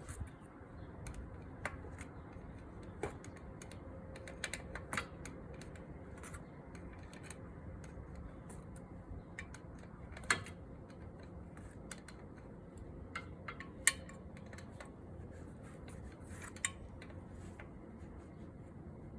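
Scattered light metallic clicks and taps from tools and hand work on a scooter's oil drain plug as it is threaded back in and snugged, the sharpest about ten, fourteen and sixteen seconds in, over a steady low background hum.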